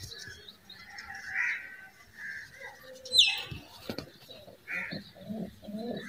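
White domestic pigeons cooing in low, repeated phrases that build up near the end, with scattered short chirps and one sharp high chirp falling in pitch about three seconds in.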